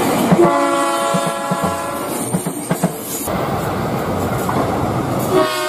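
KRL Commuterline electric commuter train running along the track with its wheels clacking over the rail joints. Its horn sounds one steady blast of about two seconds near the start, and a second blast begins near the end.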